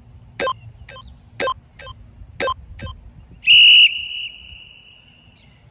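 Interval workout timer signalling the start of a work interval: three short countdown beeps a second apart, then one longer, louder beep that fades out.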